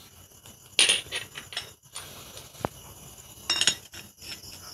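Metal clutch plates clinking together as they are stacked into the clutch basket of a Lifan 160cc motorcycle engine: two short bursts of clinks, about a second in and about three and a half seconds in, with a single light tick between.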